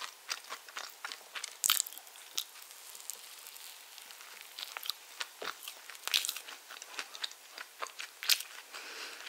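Close-miked eating sounds of spiced orange sponge cake: biting and chewing with many scattered sharp mouth clicks, a few of them louder.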